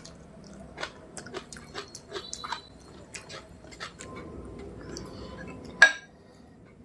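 Close-up eating sounds: rice and mutton curry being chewed, with many small wet clicks and smacks. One sharp, loud click comes about six seconds in.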